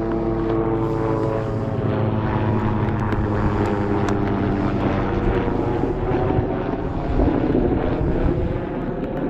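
Propeller aircraft engine droning, its pitch slowly falling as it passes.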